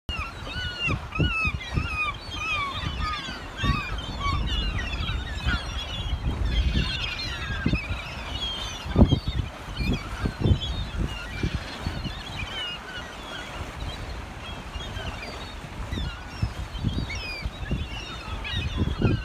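A flock of gulls calling over the water: many short, overlapping calls, thickest in the first half and thinning out later. This is the noise of gulls gathered to feed on fish that the sea lions drive up. Irregular low rumbles run underneath.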